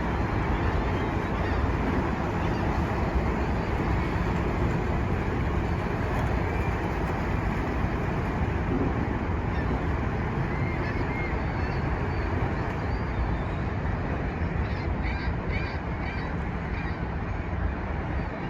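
Steady rumbling outdoor background noise, with short honking bird calls, goose-like, breaking through in the second half, most densely near the end.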